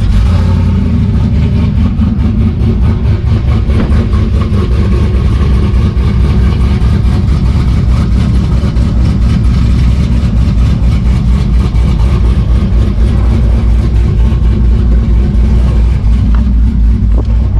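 Chevrolet Tahoe's engine running loud and steady, with its strongest energy in a deep low note.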